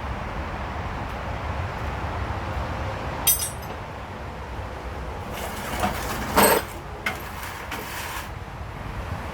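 Hand tools and parts clinking and scraping while the plastic timing belt cover is worked off a Honda B16A2 engine: one sharp click about three seconds in, then a few seconds of rattling and scraping, loudest about six and a half seconds in, over a steady low hum.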